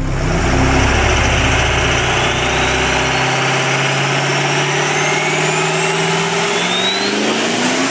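Engine accelerating, with a whine that climbs steadily in pitch over several seconds. The deep rumble underneath drops away about three seconds in.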